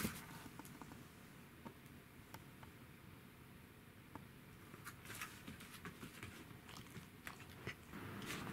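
Faint scattered taps and soft scuffles of a dog's paws moving about on foam floor mats. Near the end the taps come thicker as the dog play-wrestles with a black cat, mouthing at it.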